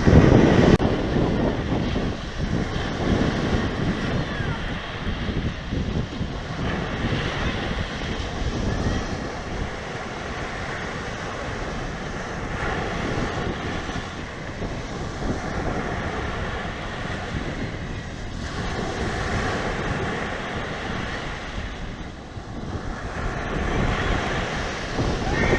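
Sea waves surging and breaking, with wind buffeting the microphone into a low rumble; the noise swells and eases every few seconds.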